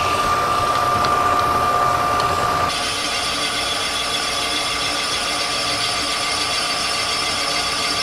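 Rottler cylinder boring bar running, its cutter boring out a cast-iron small-block Chevy cylinder for oversize pistons. At first it gives a steady whine with two tones. About two and a half seconds in, this changes abruptly to a steady, higher hiss.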